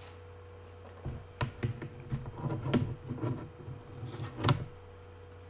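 Irregular clicks, taps and light knocks of a plastic CD case being handled and opened, starting about a second in and stopping near the end, over a steady low hum.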